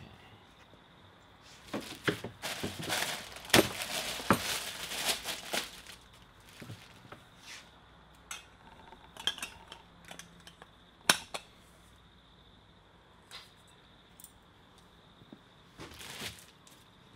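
Parts of an IKEA Tertial work lamp being handled and fitted together by hand: metal clinks, clicks and rattles of the steel shade, head and arm, thick for a few seconds near the start, then single clicks now and then, the sharpest about 11 seconds in.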